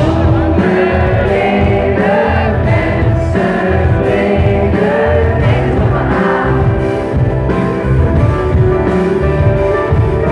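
Live band playing a song with singing, with electric guitar, drums and keyboards, coming in loud right at the start after a quieter moment.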